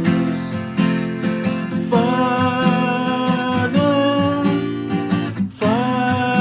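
Worship song: a singer holding long notes over strummed acoustic guitar, with the sung word "Father" beginning about four seconds in.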